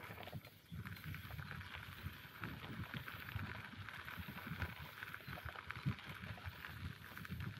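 Bicycle being ridden along a forest track: tyres crunching and rattling over the ground with many small clicks, over a low rumble.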